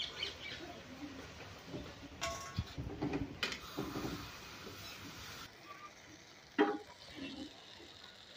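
Metal ladle stirring and scraping soya chunks as they fry in oil in an iron kadhai, with a faint sizzle under a scatter of scrapes and knocks against the pan. A sharper knock comes about two-thirds through.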